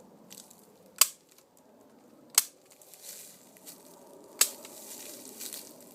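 Sharp clicks, about one and a half to two seconds apart, three of them in quick isolated strokes, with a brief rasping hiss after the second and the third, from the work of sealing off a beehive entrance.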